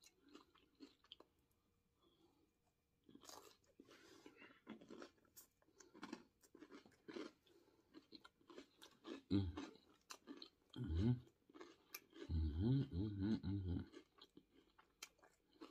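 Chewing and crunching a mouthful of Caesar salad lettuce, with wet mouth clicks. A few short hums come in about two thirds of the way through.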